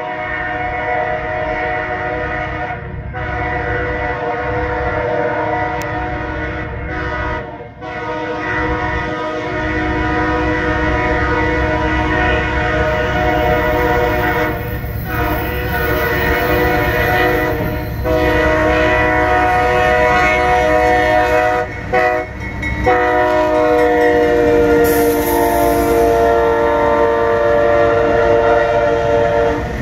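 GE Dash 8-40CM diesel locomotive's air horn sounding a loud chord in repeated long blasts with short breaks, warning at a grade crossing as the train approaches. Beneath it, the rumble of the engine and wheels grows as the locomotive comes close, and the horn's pitch drops slightly as it passes.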